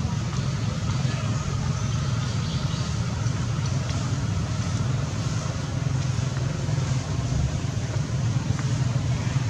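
A steady low rumble of motor-vehicle engine noise.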